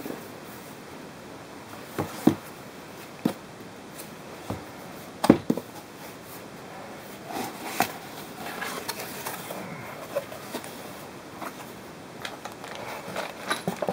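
A cardboard box set down and handled on a desk mat with a few sharp knocks, then its flaps opened with cardboard rustling and scraping. Near the end, small clicks as the wall mount's metal brackets inside are handled.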